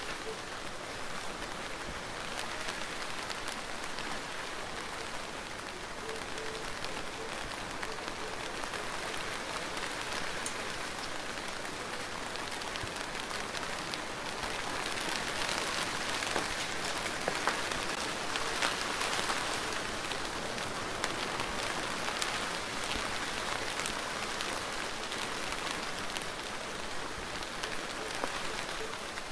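Steady rain falling: an even hiss with scattered individual drop taps, growing a little louder in the middle.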